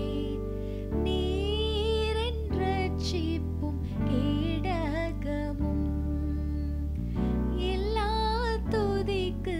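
A woman singing a Tamil Christian worship song, long notes with a wavering vibrato, over held instrumental chords that change every second or two.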